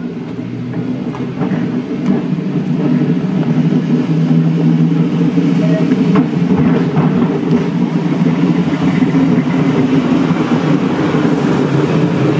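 Sheffield double-deck electric tram 74 running past on its rails, a steady drone from its motors and wheels that grows louder over the first two seconds and then holds.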